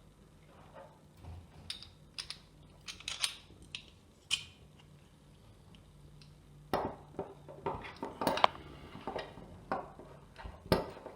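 Metal parts of a Tormek knife jig and its pin pivot collar clicking and clinking together as the collar is fitted on: scattered light clicks at first, then a quicker run of louder knocks in the second half.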